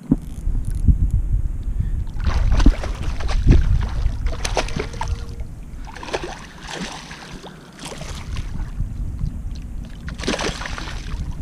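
A hooked fish thrashing and splashing at the surface beside a kayak, in several bursts of splashing over a low rumble that is heaviest in the first few seconds.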